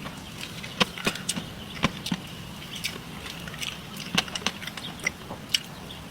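Close-up eating sounds of a person chewing cheesecake: irregular sharp wet mouth clicks and smacks over a faint steady hum.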